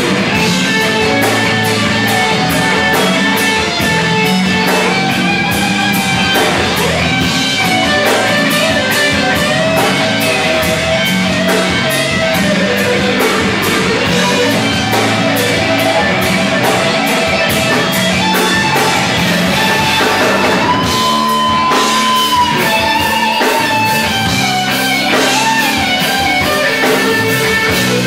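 Live funk-rock band playing loud and steady, with electric guitars and a drum kit.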